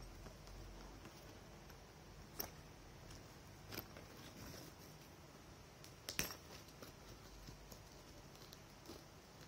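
Quiet handling of a Fjällräven Kånken Mini backpack and its straps, with a few light clicks, the sharpest about six seconds in.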